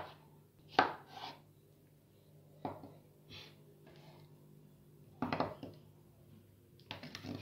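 Chef's knife slicing tomatoes on a wooden cutting board: the blade knocks on the board irregularly, sometimes two or three strokes in quick succession, with pauses between.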